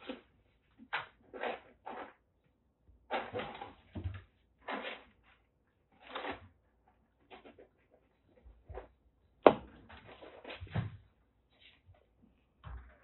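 Two kittens play-fighting on a cage shelf: irregular bouts of scuffling and scratching of paws and fur, with one sharp knock about two-thirds of the way through.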